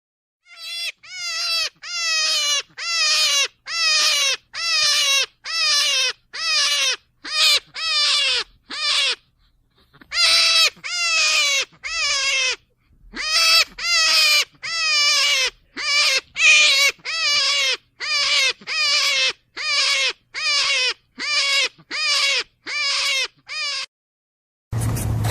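Rabbit crying: a long run of short, high, wavering cries, about three every two seconds, broken by a pause of about a second near the ten-second mark. A rasping scrape cuts in abruptly at the very end.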